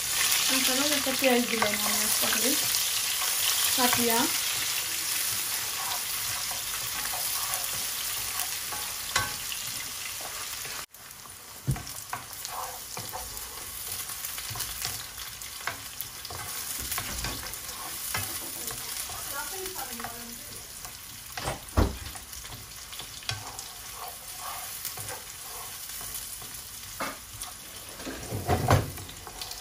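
Sliced onions sizzling in hot oil in a non-stick frying pan, stirred with a wooden spatula that knocks against the pan now and then. The sizzle is loudest at first and drops to a quieter frying hiss about eleven seconds in.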